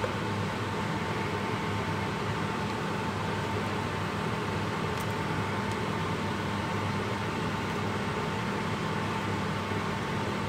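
Steady hum and hiss of a kitchen fan, with a faint high whine running through it. A couple of faint clicks near the middle come from the spoon touching the steel pot.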